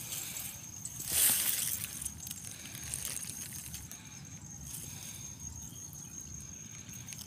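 Rice leaves and panicles rustling against the phone as it is pushed through the paddy and the heads are handled, loudest about a second in, over a low steady rumble of wind and handling on the microphone.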